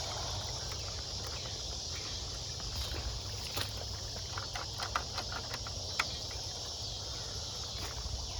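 Outdoor creek-side ambience: a steady high insect buzz over a low rumble of wind on the microphone. Around the middle there is a scattered run of light clicks and snaps, like steps through brush.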